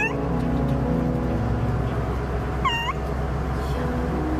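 A cat meowing twice, each a short cry that bends up and falls back in pitch, one at the start and one about two-thirds of the way through, over a steady low hum and soft background music.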